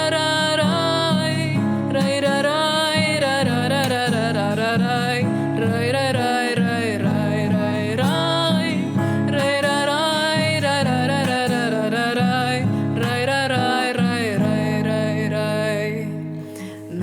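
Music from a song's break between verses: acoustic guitar accompaniment under a wavering wordless melody line, easing off just before the end.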